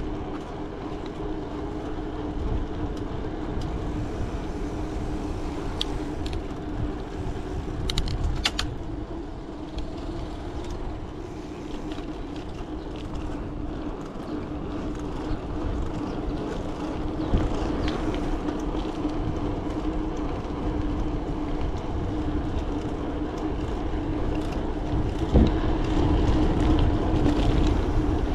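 Mountain bike riding along a paved path, heard from a handlebar-mounted camera: a steady hum of the rolling tyres over low wind rumble, with a few brief clicks and rattles from the bike.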